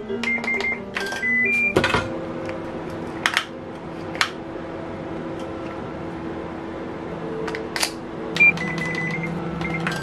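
Keypad beeps of a Hitachi MRO-S1KS microwave oven range as its oven settings are keyed in. There is a quick run of short high beeps at the start and another near the end, with soft background music and a few clicks in between.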